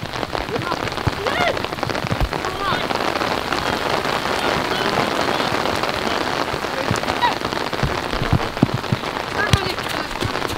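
Steady patter like rain falling on a surface, with faint distant shouts and a few dull thumps.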